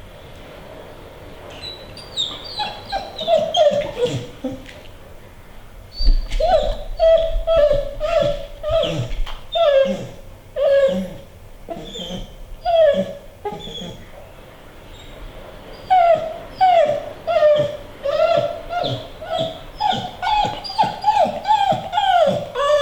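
Female American Pit Bull Terrier whining over and over in short, high cries that mostly fall in pitch, in three bouts with brief pauses between, eager to be let onto a treadmill.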